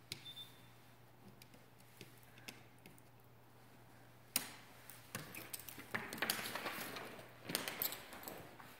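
Footsteps on a hardwood floor, starting about five seconds in, after a single sharp click; before that only a faint steady hum.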